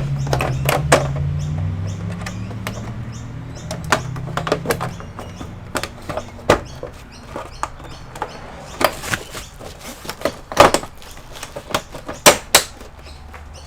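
Plastic back cover of an all-in-one PC being fitted and pressed into place: a run of irregular sharp clicks and knocks as its clips snap in, the loudest ones near the end.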